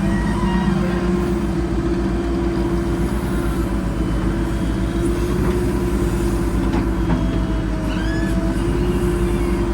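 Diesel engine of a JCB 4DX backhoe loader running steadily under load, with short high squeaks scattered over it.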